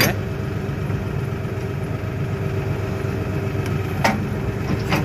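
LS XU6150 tractor's diesel engine idling steadily, with a few short knocks of the hitch hardware: one at the start, one about four seconds in and one near the end.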